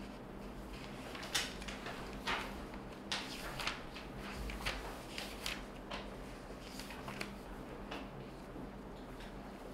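Scattered small clicks and knocks, quite faint, over a steady low hum. The clicks are thickest in the middle of the stretch and thin out near the end.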